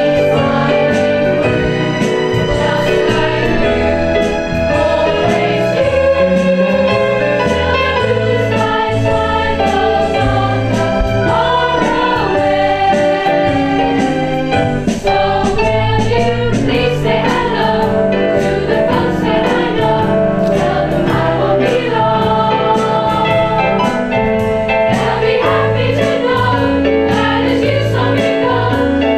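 A children's choir singing together, accompanied on an electronic keyboard, amplified through a PA system.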